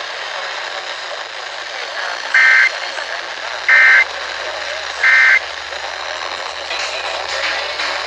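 Emergency Alert System end-of-message (SAME "NNNN") data bursts: three short, identical two-tone digital squawks about a second and a half apart, over a steady radio hiss. They mark the end of the EAS test message.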